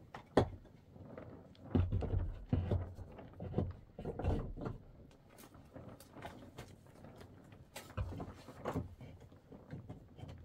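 Irregular knocks and thuds, a few of them heavy and deep, with lighter clicks in between.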